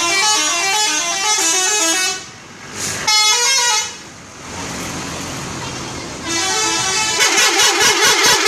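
Bus 'telolet' musical air horn playing quick tunes of stepped notes in three bursts: a melody of about two seconds, a short phrase about three seconds in, and from about six seconds a longer run that warbles rapidly.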